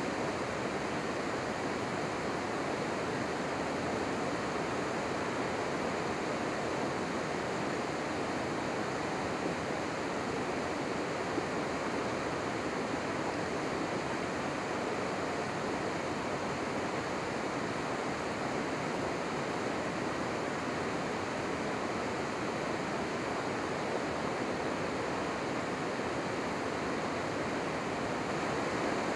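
Steady rushing of flowing river water, an even, unbroken noise.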